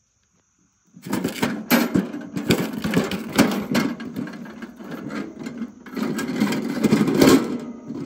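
A small Kingsford portable charcoal grill being handled, its steel lid, pan and wire handles rattling and clanking in a busy run of clatter that starts about a second in.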